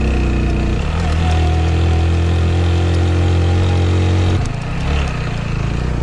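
Single-cylinder-style motorcycle engine pulling steadily under throttle, then dropping off abruptly about four and a half seconds in as the throttle is closed, leaving rougher engine and road noise on the broken gravel track.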